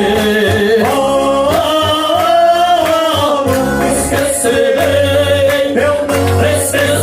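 A man singing a gospel worship chorus to electronic keyboard accompaniment, holding long sung notes over a steady bass line.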